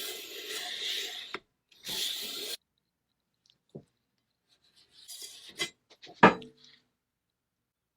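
Two scraping strokes of hand work on metal rifle parts, then a light click, more rubbing, and a sharp metallic clack with a brief ring about six seconds in.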